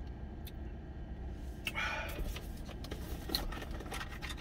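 A man sipping hot kimchi-stew broth from a container, with one breathy exhale about two seconds in, over a low steady rumble.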